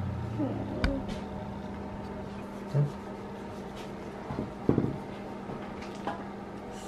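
A few small clicks and knocks of a plastic Hatchimals CollEGGtibles toy egg being handled and worked open, over a steady low hum.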